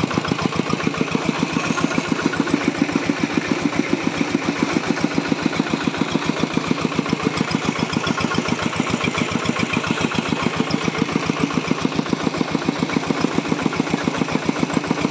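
Diesel engine driving a corn grinding mill, running at a steady speed with an even, rapid pulsing beat.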